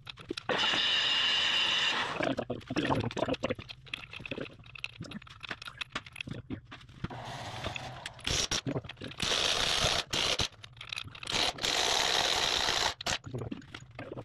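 A power wrench running in the final drive's mounting bolts, in several bursts of a few seconds each, with clinks and scrapes of steel tools and bolts between them.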